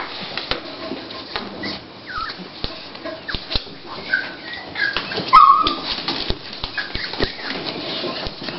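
Toy pinscher bitch in early labour, giving short high-pitched whimpers, the loudest about five seconds in, while the blanket rustles under her as she shifts and nests.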